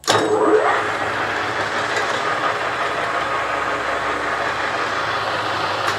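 Webb gear-head lathe started on three-phase power from a Phase Perfect phase converter, set to 710 rpm. It starts suddenly without hesitation, the motor and spindle spinning up with a rising whine over the first half second, then running steadily.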